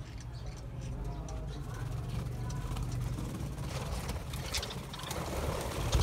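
Budgerigars chirping faintly over a low steady rumble, with wings fluttering near the end as several birds take off from the perch.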